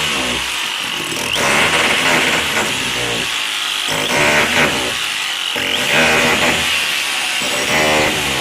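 Rotary hammer running under load on car bodywork metal, its buzzing hammer note easing off and coming back every second or two over a steady high whine.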